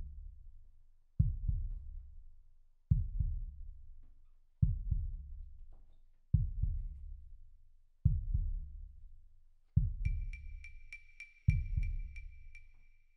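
Suspense film score: a low, booming double thump like a slow heartbeat, repeating about every 1.7 seconds and dying away after each beat. Near the end a high, even ticking joins in at about three a second.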